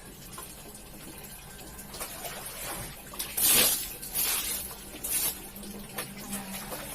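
Water sounds from a carpet being washed by hand, with a few loud swishing strokes in the second half.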